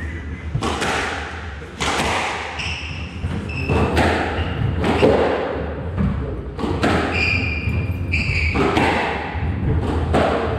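Squash rally: the ball cracking off the rackets and slamming into the walls about once a second, each hit echoing around the court. Between the shots come short high squeaks of court shoes on the wooden floor.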